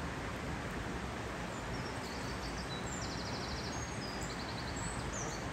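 Steady rush of stream water, with a small bird singing a few short high trills in the middle.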